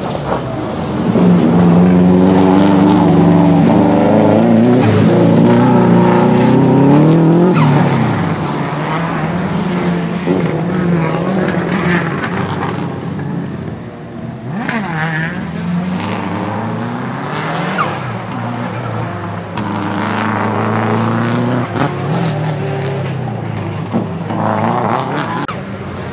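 Subaru Impreza GC8 Group A rally car's turbocharged flat-four engine at racing revs, its note climbing and dropping through repeated gear changes. It is loudest in the first several seconds as the car slides across the loose gravel, then quieter as the car runs on around the circuit. A few short sharp cracks come through later on.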